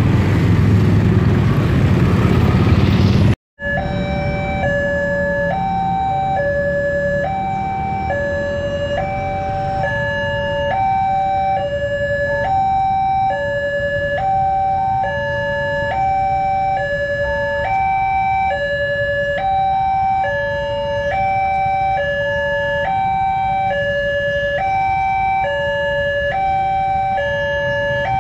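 Motorcycle traffic running for the first few seconds. Then a railway level-crossing electronic alarm sounds a repeating three-note pattern, stepping up and down in pitch and cycling about every two seconds, over a low traffic rumble, as the crossing warns of an approaching train.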